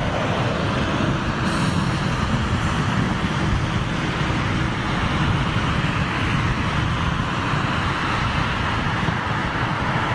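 Steady low rumbling outdoor background noise with no distinct events, of the kind left by wind, road traffic or distant jet engines around an airport perimeter.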